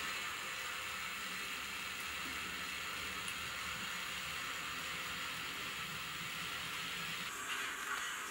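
Steady hiss of steam from a model steam locomotive's sound decoder, changing in character near the end.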